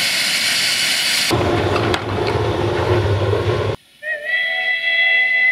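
Narrow-gauge steam locomotive whistles: a breathy, hissing whistle blast that turns rougher and lower about a second in, then cuts off abruptly and gives way, about four seconds in, to a clear, steady whistle note of several pitches.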